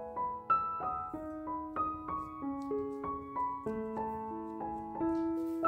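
Background piano music: a gentle melody of single notes, a few a second, over held lower notes.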